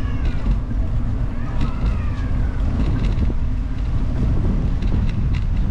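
Wind buffeting the microphone of a camera on a moving bicycle, a steady low rumble, with brief faint voices of passers-by over it near the start and again about a second and a half in.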